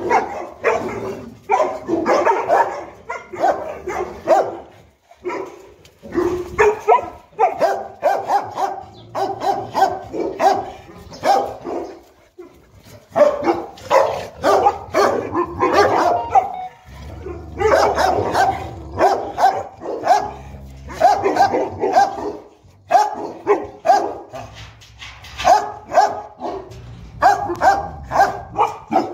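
Boerboels (South African mastiffs) barking over and over in quick runs, with short pauses between the runs.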